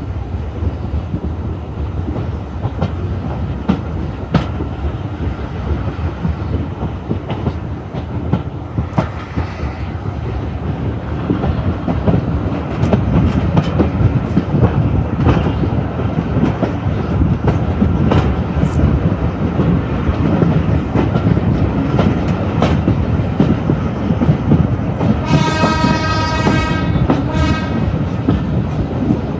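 Steam-hauled passenger coach running along the track: a steady rumble and clatter of wheels over the rails, growing louder about twelve seconds in. Near the end the locomotive's steam whistle sounds, a long blast then a short one.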